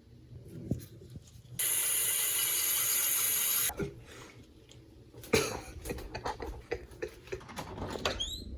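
A steady rushing hiss that starts and stops abruptly and lasts about two seconds. It is followed by scattered knocks and clicks, with a few short rising squeaks near the end.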